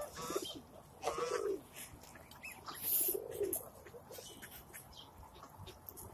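Rock pigeons cooing: three low, arched coos, with brief flutters of wings.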